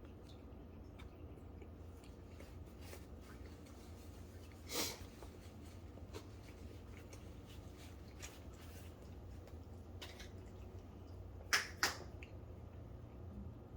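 Two sharp finger snaps in quick succession near the end, with a softer, broader burst of noise about a third of the way in. Faint scattered clicks over a low steady hum fill the rest.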